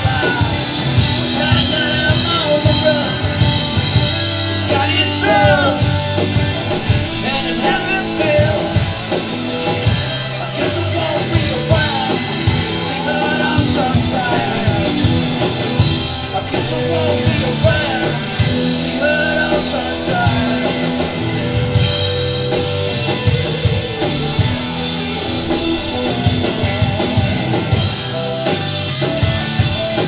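Live rock band playing an instrumental passage: two electric guitars over a drum kit, with a wavering lead line on top.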